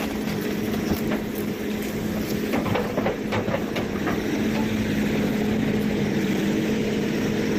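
Hydraulic excavator's diesel engine running steadily while its bucket pushes and tears at a tree's roots. A scatter of short cracks and knocks in the first few seconds, from roots and soil giving way under the bucket.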